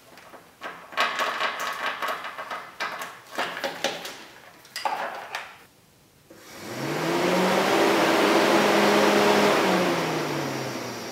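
Clicks and rustles of wire connectors being handled. Then a car's electric cooling fan spins up with a rising hum and rush of air, runs steadily for about three seconds, and winds down near the end. The fan runs because the corroded connector that was starving it of current has been taken out of the circuit.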